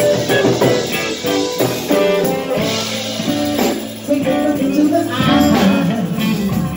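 Live band music with a saxophone playing a melodic line over the drums.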